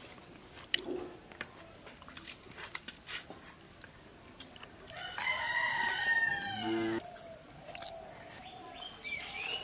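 A rooster crowing once, a long call of about two seconds in the second half, over scattered light clicks; a short rising chirp comes near the end.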